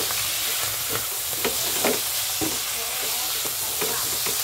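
Sliced mushrooms and garlic sizzling in oil in a nonstick pan, stirred with a silicone spatula. Several short scrapes and taps of the spatula against the pan sound over a steady hiss.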